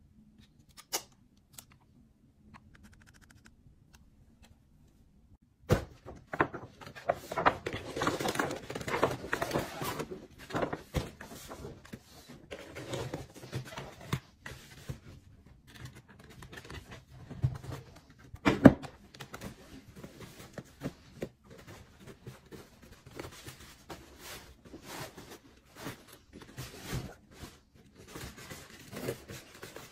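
A couple of light clicks in near quiet. Then, from about six seconds in, a busy run of rustling, taps and thuds as a large rigid gift box is opened and a backpack is uncovered and handled inside it, with one sharp thud about two thirds of the way through.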